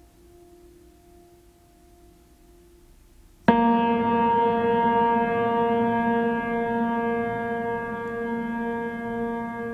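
A faint steady hum, then a loud held musical tone with many overtones that starts abruptly about a third of the way in and slowly fades.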